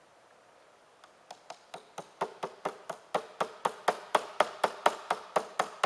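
Rapid, even hammer taps driving the pin into the Luggie tiller trigger clamp, about four strikes a second, starting about a second in and growing louder. The pin pushes the Allen wrench that was holding the holes in line out the other side.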